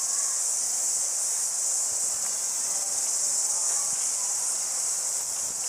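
Steady, high-pitched chorus of cicadas, holding level without a break.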